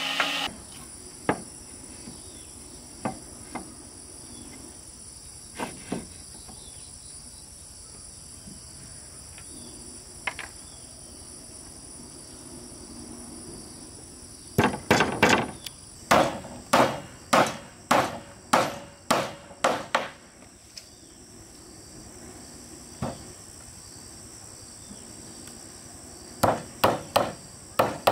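Hammer blows on wooden planks, a few scattered knocks at first, then a quick run of about two strikes a second, and another short run near the end. A steady high-pitched chirring of insects runs underneath.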